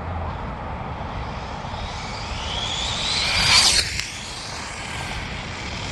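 Arrma Typhon 8S electric RC buggy running, its brushless motor whine climbing sharply in pitch and loudness to a peak about three and a half seconds in, then dropping away abruptly just before four seconds in.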